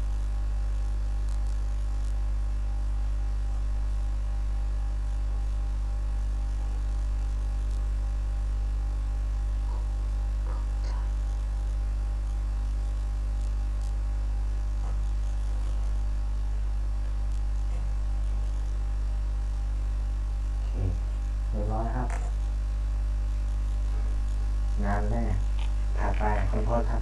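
Steady low electrical mains hum with a faint buzz of overtones above it, running unchanged under the recording. A few brief vocal sounds come in near the end.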